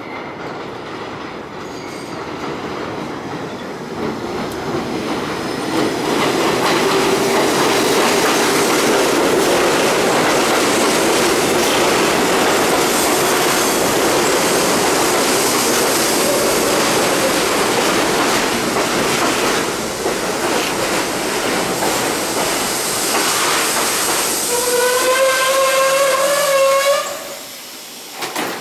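R42 subway train built by St. Louis Car Co. pulling into an elevated station: the rumble and rattle of its wheels on the track grow louder over the first six seconds and stay steady as the cars pass. Near the end a steady, slightly rising squeal rings out as the train brakes to a stop, then the noise drops off suddenly.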